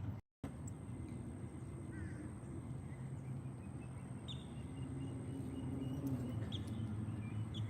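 A few faint, short bird chirps, scattered and then coming more often near the end, over a steady low background rumble.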